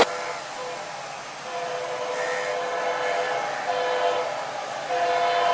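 Indian Railways locomotive horn sounding in several blasts of different lengths, with a long blast in the middle and a higher note starting near the end.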